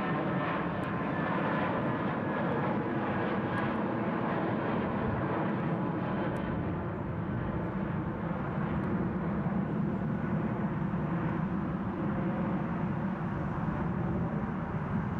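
Airbus A320 jet engines at climb power as the airliner climbs away overhead. A steady jet drone, whose higher hiss fades about halfway through while the low part carries on.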